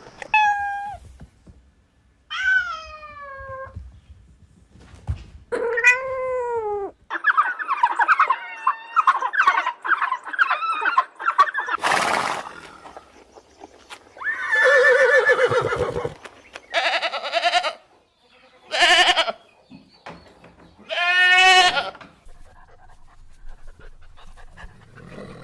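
A run of separate animal calls and cries, several of them falling in pitch, with a sharp knock about twelve seconds in.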